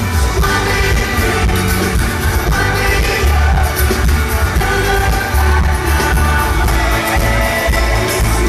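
Live pop band performing in an arena, heard from within the audience: a full band with acoustic guitar and a heavy bass, with singing over it.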